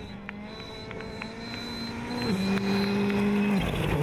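Rally car engine running at a steady high-rev note that drops to a lower pitch about two seconds in, with a few sharp ticks early on. It briefly falls away near the end.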